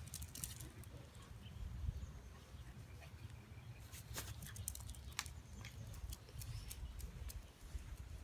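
Dachshunds at play: scattered light clicks and pattering, as of paws and claws, over a low steady rumble.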